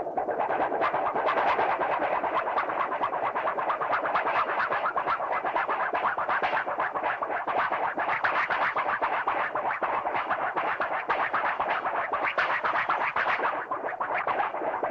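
Looney Tunes cartoon sound effect: a long, continuous run of rapid, dense chattering clicks, many to the second, that fades at the very end.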